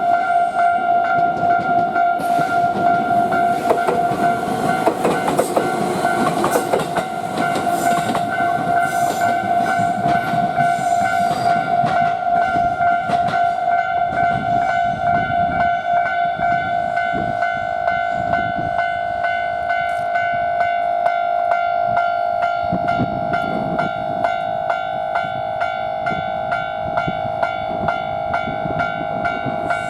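Railway level-crossing warning bell ringing on and on in a steady repeating tone while a train runs over the crossing, its wheels clicking over the rail joints; the train noise is loudest in the first half.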